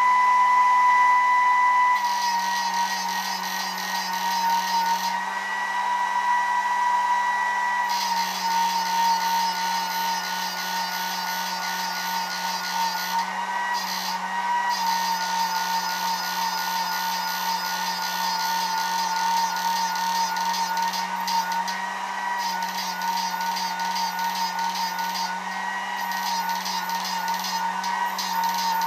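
Homemade 12-volt fishing inverter running under load: a steady high-pitched electronic whine with a low fan hum beneath it and a fast pulsing pattern above. The whine's pitch and the pulsing shift slightly each time a front control knob is turned, about 2, 8, 14 and 22 seconds in.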